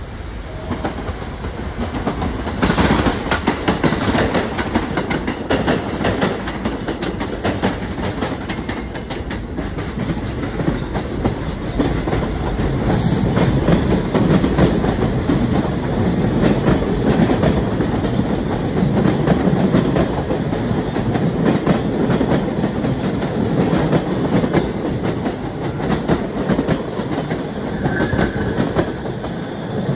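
Two New York City Subway trains passing close by each other, their steel wheels clattering over the rail joints with a steady rumble. The sound grows louder a couple of seconds in.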